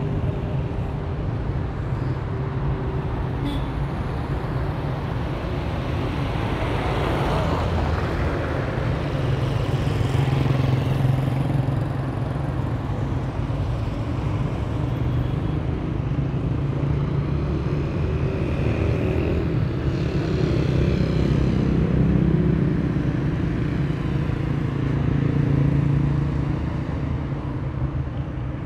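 City street traffic: cars and motorbikes passing on the road, a steady rumble with several vehicles swelling past in turn.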